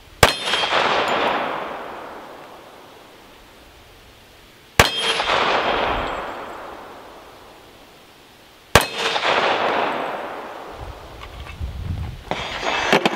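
Three handgun shots fired slowly, about four seconds apart, each followed by a long echo that dies away over two or three seconds. Near the end come a few light clicks and a clatter.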